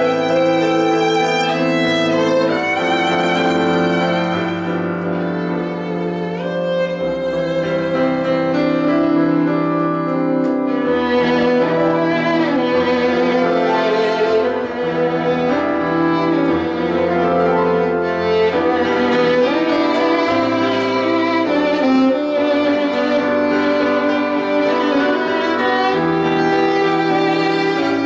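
Solo violin playing a slow melody with wide vibrato over sustained low accompaniment chords that change every few seconds.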